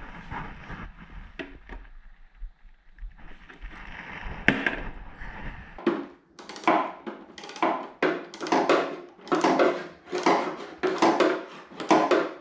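Hand work on a lawn mower's parts: low handling noise with a few knocks and one sharp click, then, from about halfway, a run of regular strokes about two a second.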